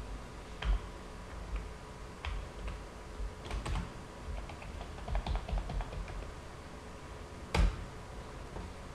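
Computer keyboard typing: scattered keystrokes, a quicker run of them about five seconds in, and one louder click near the end.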